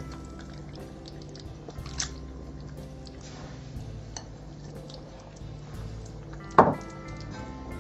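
Background music over soft wet squelches as raw fish pieces slide from a glass bowl into a pan of thick okra stew, with a sharp knock about two-thirds of the way in.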